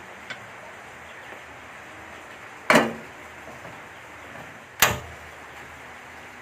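A small aluminium saucepan is set down on a gas stove's burner grate with a metallic clank. About two seconds later comes a sharp click as the stove knob is turned and the burner lights. A steady hiss runs underneath, with a faint click near the start.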